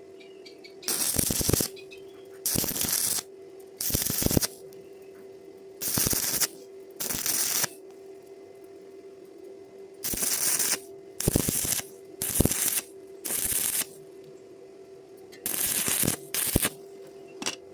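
Stick-welding arc crackling in about eleven short bursts of under a second each, the arc struck and broken again and again: stop-start welding across a gapped joint. A steady hum runs underneath.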